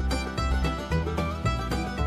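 Background music: a quick, bright plucked-string tune over a pulsing bass line.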